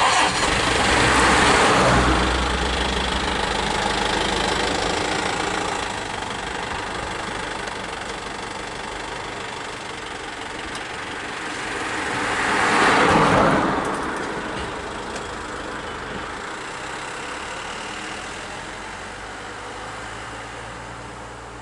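A motor vehicle's engine running steadily, with two louder swells of rushing noise: one at the start and one about thirteen seconds in.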